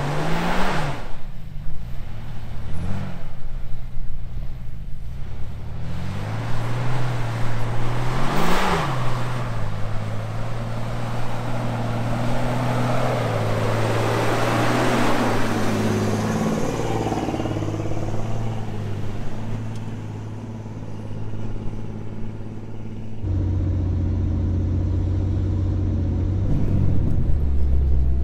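Off-road vehicle engines running under load while a stuck pickup is towed out of sand on a rope. Several revs rise and fall in the first ten seconds, then a rushing noise builds and fades in the middle, and a steady low drone follows.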